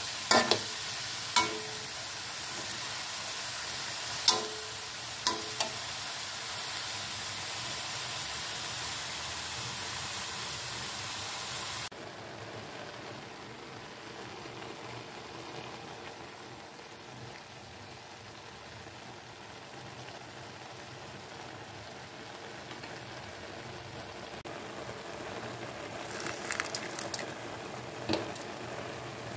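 Minced meat sizzling as it fries in a metal wok, with a few sharp clicks of a metal spatula against the pan in the first several seconds. About twelve seconds in the sizzle cuts abruptly to a quieter, softer frying hiss, with a few more clicks near the end.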